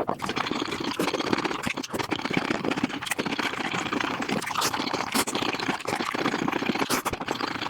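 Eating sounds sped up to five times normal speed: a dense, unbroken run of fast chewing, crunching and clicking.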